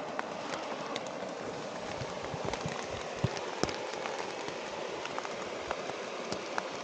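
Steady rain falling, with many individual drops tapping sharply close by.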